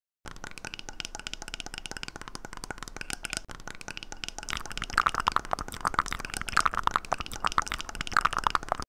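Close-miked ASMR mouth sounds: a dense run of rapid wet clicks and smacks. It grows louder about halfway through, with stronger clusters of clicks.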